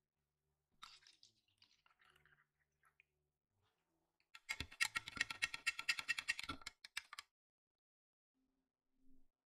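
A soft pouring sound about a second in as milk goes into a glass of coffee. Then a metal spoon stirs quickly in the drinking glass, clinking rapidly against its sides for about three seconds before stopping.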